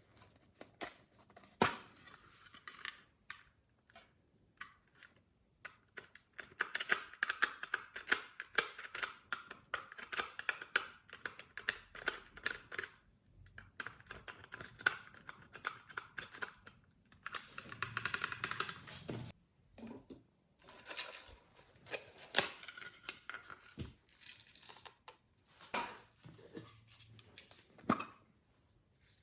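Glossy slime being worked by hand, giving irregular sticky clicks, pops and crackles that come in bursts, thickest in two spells of dense crackling.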